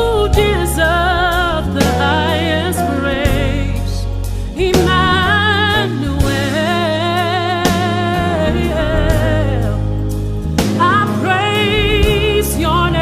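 Gospel worship music: long, wavering sung notes without clear words over steady sustained bass and keyboard notes and light percussion.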